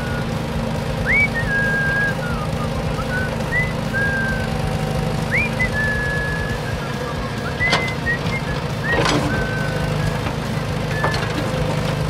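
A steady low engine-like drone, with a series of clear whistled notes over it; each note glides up and then holds. A few short clicks come in the second half.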